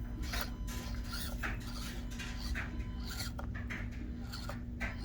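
Axial SCX24 Deadbolt micro RC crawler working over the course: a string of short, irregular scrapes and clatters from its tires and chassis on rock, over a steady low hum.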